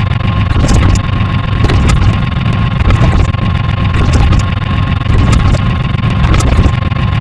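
A loud, dense mix of overlapping sound effects: a constant low rumble under a steady tone, with many sharp clicks scattered through it.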